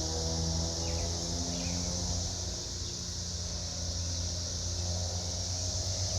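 Steady drone of a periodical cicada chorus, over a low, steady mechanical hum.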